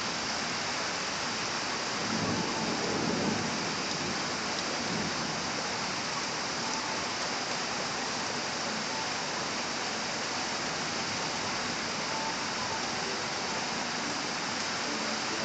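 Rain falling steadily, a constant hiss, with a brief low rumble about two seconds in.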